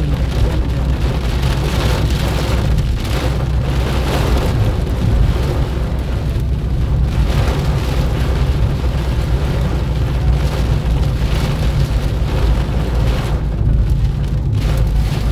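Heavy rain beating on a car's windshield and body, heard from inside the moving car, over a steady low rumble of road and engine.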